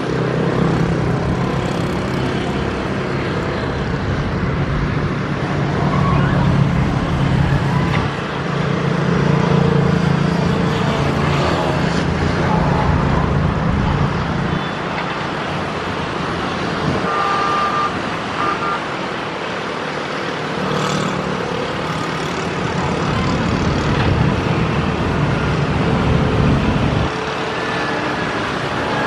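Kobelco hydraulic excavator's diesel engine running under digging load, its note swelling and easing in several stretches as the arm and bucket work.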